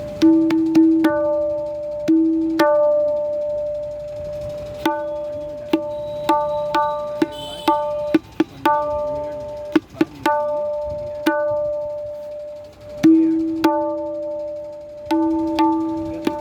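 Tabla played to show off its tone: the right-hand drum (dayan) rings a clear, steady tuned note with overtones on each stroke. Lower strokes on the bass drum (bayan) sound between them, some bending in pitch.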